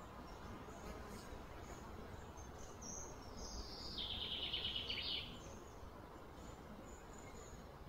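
Outdoor background noise with a brief high, rapid trill that slides down at about three seconds in, then holds for about a second before stopping.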